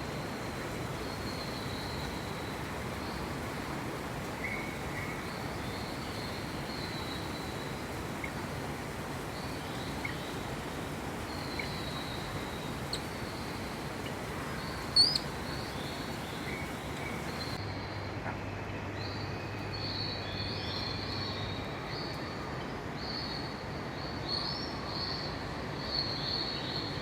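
Birds chirping in short repeated calls inside a large glass-domed indoor rainforest hall, over a steady hiss of the hall's background noise. One sharper, louder chirp comes about halfway through, and the calls come thicker in the second half.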